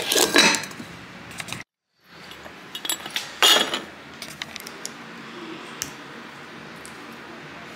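Ceramic and glass clinking: a ceramic pumpkin canister's lid knocks against its rim at the start, and about three and a half seconds in a glass lid and glass honey dipper clink against a glass jar. The sound drops out for a moment about two seconds in.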